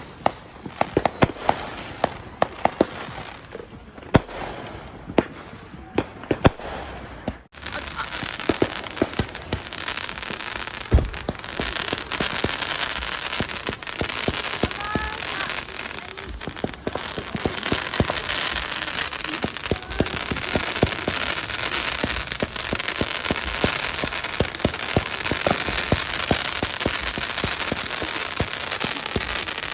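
Fireworks and firecrackers going off: scattered sharp bangs, then after a break about seven seconds in, a denser run of crackling pops over a steady hiss.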